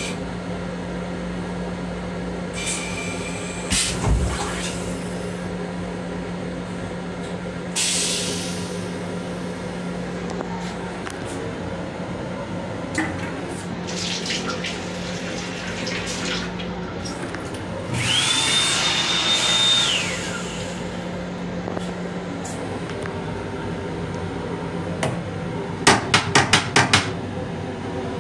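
Sounds in an M7 railcar restroom over a steady low hum of the car: the sink tap runs briefly partway through, a louder hiss lasting about two seconds with a high steady whine in it follows a few seconds later, and a quick run of about six clicks comes near the end.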